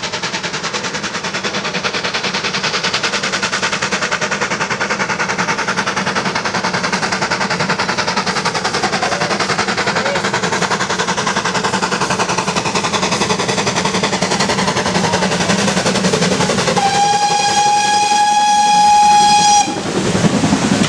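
Steam locomotive working hard with a passenger train, its rapid exhaust beats and running noise growing steadily louder as it approaches. Near the end comes a single steady whistle blast of about three seconds that cuts off sharply, followed by the rush of the coaches passing close by.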